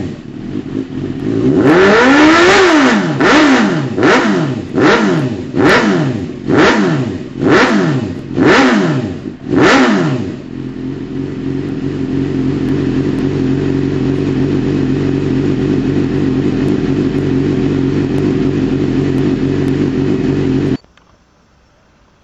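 Suzuki GSX-R600 K1's inline-four engine through a Scorpion aftermarket exhaust, revved while standing: one longer rev, then about eight quick throttle blips, each rising and falling in pitch. It then settles to a steady idle for about ten seconds, which cuts off abruptly near the end.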